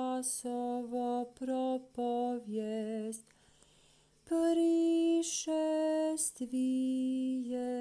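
A single voice chanting an Orthodox kontakion in Church Slavonic, holding each syllable on a steady note, with a pause of about a second partway through.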